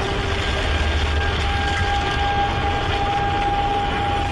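Steady roar of tornado winds buffeting a car, heard from inside the car as it drives, with a heavy low rumble. A steady high tone is held over it from about half a second in.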